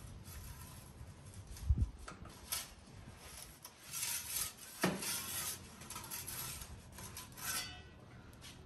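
Pizza peel scraping and clinking against the floor of a small wood-fired oven as the pizza is turned, in several short rasping strokes, with a low thump about two seconds in.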